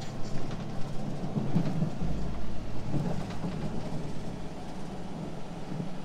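Cab interior of a Western Star semi truck at highway speed on wet, slushy pavement: steady engine drone with road and wind noise, and a deeper hum coming in about two seconds in.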